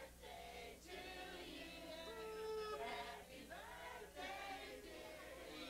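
Several voices singing together, with long held notes.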